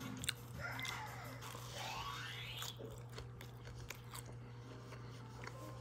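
Close-up chewing of a bite of bacon and cream cheese bagel: wet mouth clicks and smacks, over a steady low hum.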